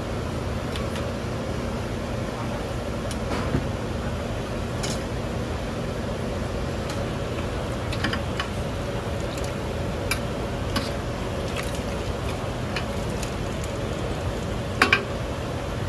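Stainless-steel ladle clinking against small metal bowls and a large stock pot as soup is ladled out, a dozen or so scattered clinks with the loudest a quick double clink near the end, over a steady low kitchen hum.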